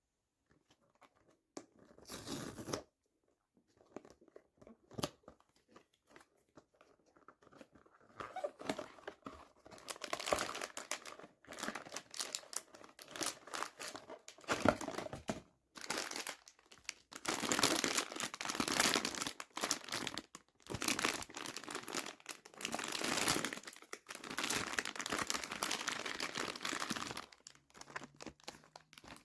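Packaging wrapper crinkling and tearing as a blind-box figure is unwrapped by hand. The noise comes in scattered bursts at first, is nearly continuous through the second half, and stops shortly before the end.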